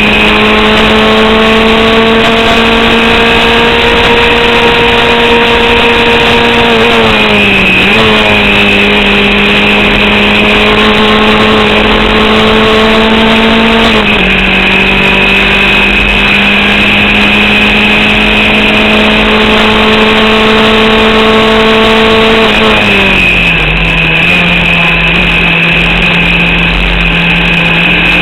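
Formula Vauxhall single-seater's Vauxhall 8-valve four-cylinder engine running hard onboard, its pitch held nearly steady with short dips and recoveries about seven, fourteen and twenty-three seconds in. The engine is misfiring and short of power from an alternator/battery fault that limits its revs.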